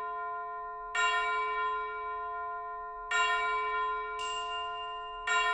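Background music of slow bell-like chimes: a chord is struck about every two seconds and left to ring and fade, with a higher shimmer added a little after the middle.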